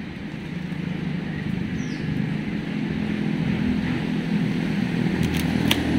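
A steady low motor hum that grows gradually louder, with a few sharp clicks near the end.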